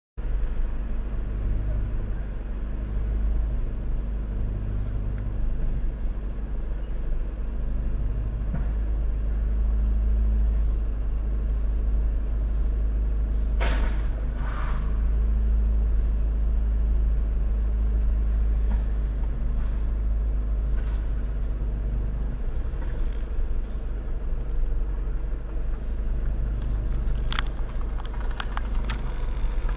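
Steady low rumble of a vehicle, heard from inside the car. About halfway through comes a single knock as a white station wagon bumps into the back of an SUV in a low-speed collision, and a few light clicks follow near the end.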